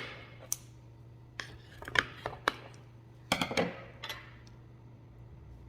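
Cutlery and dishes handled at a table: a scattering of short clinks and knocks of utensils against a plate, with a quick cluster of them partway through.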